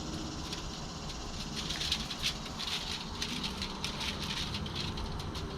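Garlic powder shaker being shaken over fish: a run of quick, light rattling taps.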